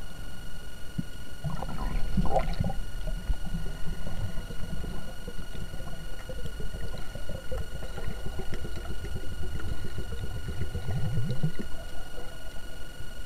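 Underwater sound picked up through a camera housing: a low rumble of water with scattered clicks and a steady high electronic whine. There is a burst of gurgling about two seconds in, and a creaking pulsed sound rising in pitch near the end.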